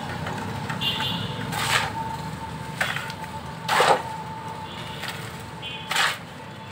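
Short scrapes and knocks of a shovel and a metal mortar pan against wet cement and the ground, four in all, the loudest a little before four seconds in, over a faint steady high hum.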